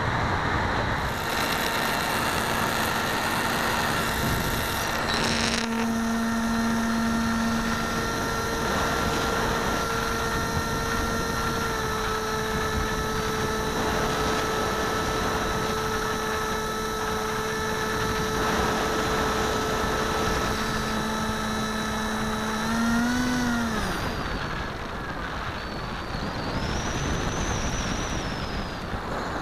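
Sky Surfer RC glider in flight, heard from a camera on the plane: wind rushing over the camera's microphone with the steady hum of its electric motor and propeller. The motor tone rises briefly and cuts off a little over twenty seconds in, leaving mostly wind.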